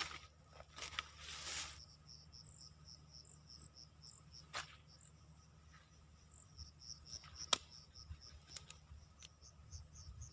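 Insects chirping in quick, evenly repeated high pulses, with a burst of rustling in the first two seconds and a few sharp clicks later on.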